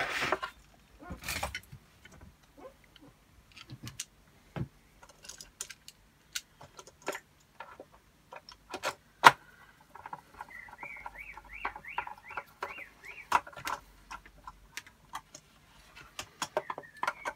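Hand screwdriver driving screws into a droid's body section: scattered clicks and knocks of the driver, screws and parts being handled. About ten seconds in, a screw squeaks as it turns, a rising-and-falling squeak about three times a second for some three seconds.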